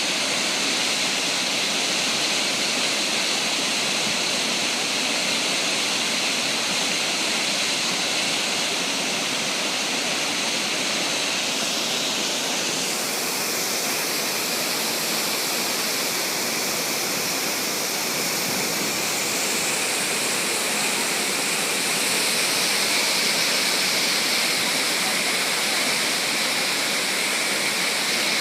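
Large waterfall: a steady rush of falling water, turning a little brighter and more hissy about halfway through.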